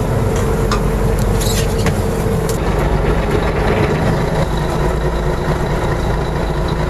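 Fishing boat's engine running steadily underway, an even low rumble.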